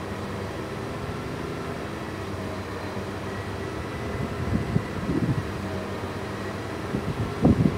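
Passenger railcar moving slowly with a steady mechanical hum from its running equipment. A few low thumps come in about halfway through and again near the end.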